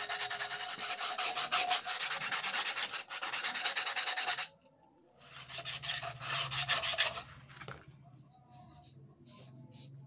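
A cloth being rubbed rapidly back and forth over a clear cylinder, a fast scratchy scrubbing. It runs steadily for about four and a half seconds, pauses briefly, comes back for about two seconds, then fades to quiet handling.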